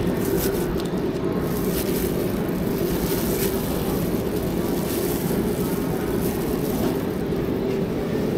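Steady low rumble of market-stall background noise, with a few faint light clicks of a spoon working on the rolling board.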